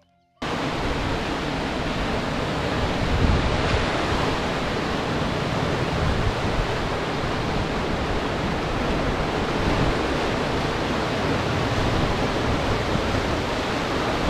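Muddy canal water rushing through rapids and over a low weir: a steady, dense roar of white water that cuts in suddenly about half a second in.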